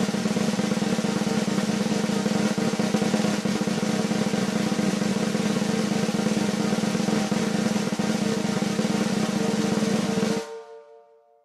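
Snare drum roll, a long steady roll at an even level that cuts off abruptly near the end, leaving a brief ringing tail that fades out.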